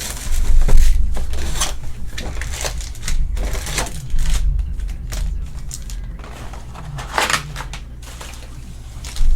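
Packaging of a trading card hobby box being opened by hand: cardboard and foil pack wrappers crinkling and tearing in irregular crackles and clicks, over a steady low hum.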